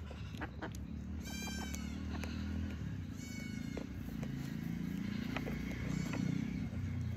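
Three short, high-pitched animal calls, about one, three and six seconds in, the last one faint, over scattered small clicks and a low steady rumble.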